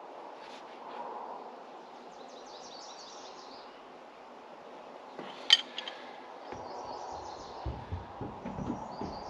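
Small birds chirping in short runs over a quiet outdoor background, with one sharp metallic clink of a wrench against a hydraulic fitting about five and a half seconds in. Some low rumbling comes in near the end.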